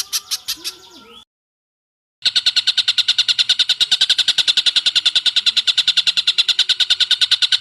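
Recorded bird calls: a fast run of sharp repeated notes that fades out about a second in, then a second of dead silence, then a loud, unbroken stream of rapid high notes, about a dozen a second.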